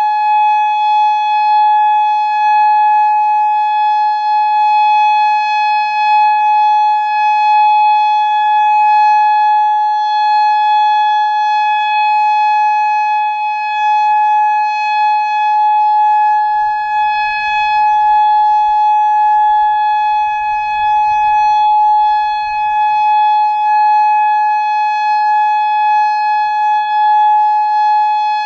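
Federal Signal Modulator 3012 electronic warning siren sounding a steady tone for its monthly test, holding one pitch without rising or falling. Its loudness wavers slightly.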